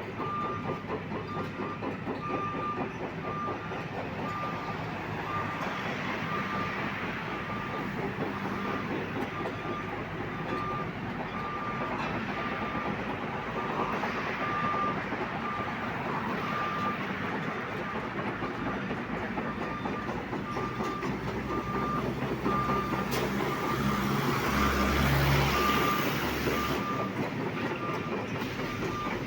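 Excavator working with a vibro hammer attachment, its engine running under a steady mechanical clatter, while a backup alarm beeps about once a second. A heavier low rumble swells for a few seconds near the end.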